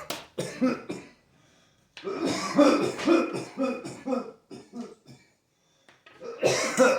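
A person's coughing fit: three clusters of repeated hacking coughs, broken by two short pauses, one at about a second in and one about five seconds in.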